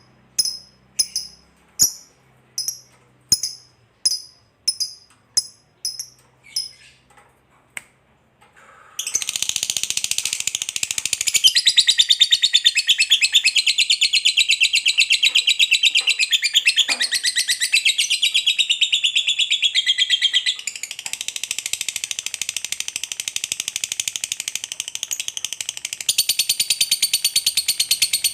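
Lovebird's long, unbroken chattering trill (ngekek panjang): high, very rapid and continuous, starting about a third of the way in. Before it comes a fading row of short sharp clicks, about one every 0.7 s.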